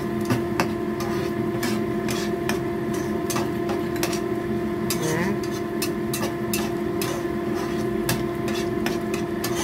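Plastic spatula scraping and knocking against a frying pan while thick chili sauce is stirred, giving irregular clicks several times a second. A steady low hum runs underneath.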